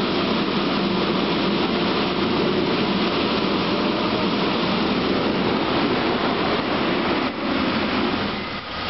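Fire engine running steadily under a loud, even rushing hiss; the level dips briefly twice near the end.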